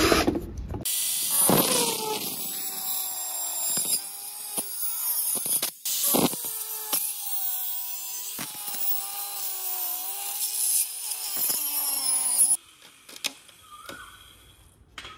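A cordless drill boring into a black-coated wooden console board stops just under a second in, then an angle grinder cuts slots in the board for about twelve seconds, its whine dipping and rising as the disc bites. It stops near the end.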